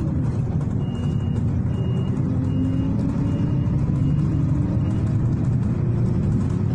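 City bus running, heard from inside: a steady engine and road rumble, with a short high electronic beep repeating about once a second for several seconds.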